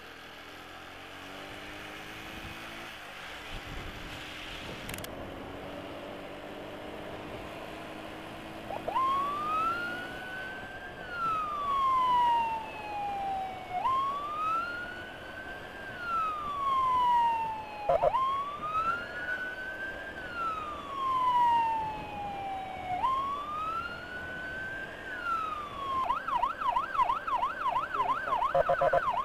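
Motorcycle riding noise at first, then an electronic emergency siren starts about nine seconds in. It gives four slow wails, each rising quickly and falling slowly over about four to five seconds, then switches near the end to a fast warble.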